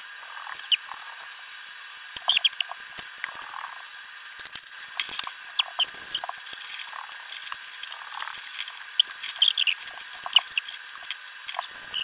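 Twist-on plastic wire connectors being screwed onto stripped copper wire ends, giving a run of small squeaks and clicks as the wires are handled and twisted together.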